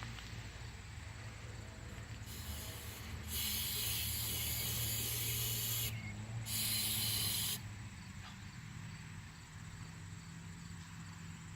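Aerosol can of Flex Seal liquid rubber spraying. A faint short hiss comes about two seconds in. Then there are two loud hisses, one about two and a half seconds long and a second about a second long.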